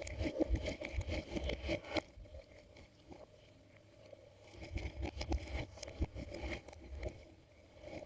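Glossy slime being squished and worked by hand, making irregular sticky clicks and small pops that go quiet for a couple of seconds in the middle.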